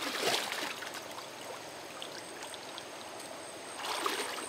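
Steady rush of flowing water, as from a stream or runoff after heavy rain, with a brief louder splash about half a second in.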